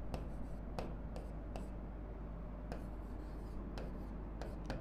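Pen writing on a board: faint, irregular taps and scratches of separate strokes, over a low steady hum.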